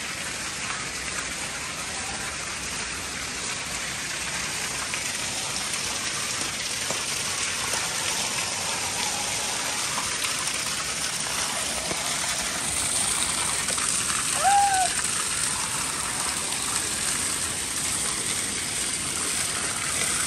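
Water gushing steadily from an inlet pipe in the pool wall and splashing onto the tiled floor of an empty swimming pool. About two-thirds of the way through, a short call rises and falls in pitch.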